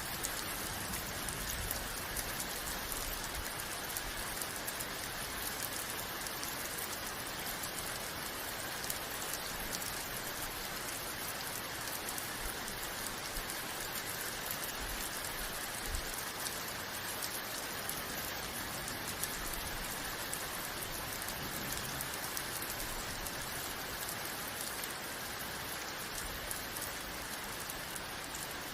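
Steady rain, a dense even hiss of many drops falling on a surface.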